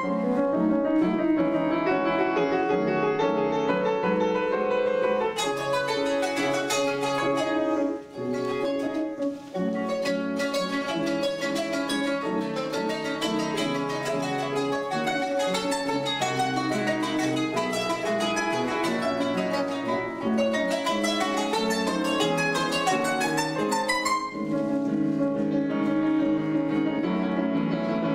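Kanon (qanun, a plucked trapezoidal zither) playing quick runs of plucked notes, accompanied by an upright piano.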